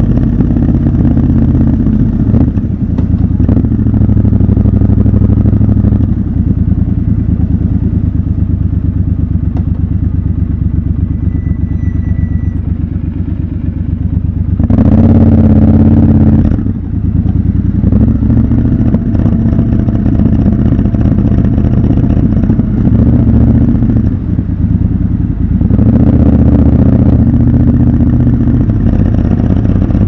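Triumph Scrambler 1200 XC's parallel-twin engine running at low road speed. The throttle is opened briefly about halfway through, and again for about a second a few seconds before the end.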